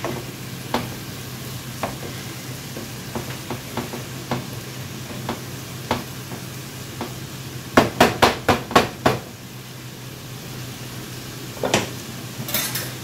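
Wooden spoon stirring corn kernels in a nonstick skillet, with light scrapes and taps on the pan over a steady sizzle of the frying corn. About eight seconds in comes a quick run of about six sharper knocks of the spoon against the pan.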